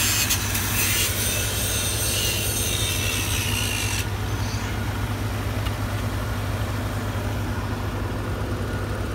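Lincoln SAE-200 engine-drive welder running steadily with a low hum. Over it, a harsh hiss with a scraping edge lasts about four seconds, then stops.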